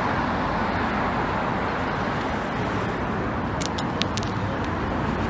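Steady outdoor traffic noise, an even rumble and hiss of vehicles, with a few faint small clicks about three and a half to four seconds in.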